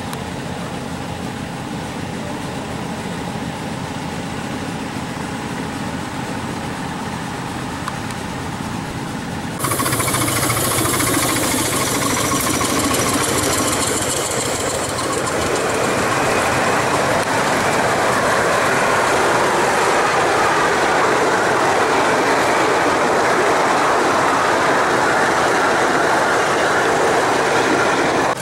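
Ride-on scale model train running on its track. About ten seconds in, the sound cuts abruptly to a louder, brighter running noise, which swells again a few seconds later.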